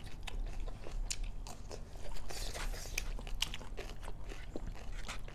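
A person biting and chewing crunchy food, a string of short sharp crunches.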